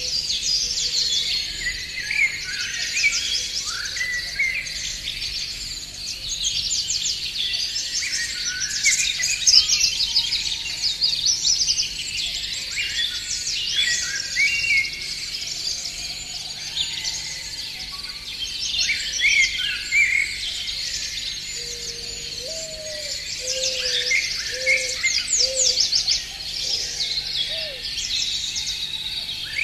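Spring chorus of many songbirds singing and calling at once, a dense tangle of high chirps and trills, with a short series of lower call notes about three-quarters of the way through.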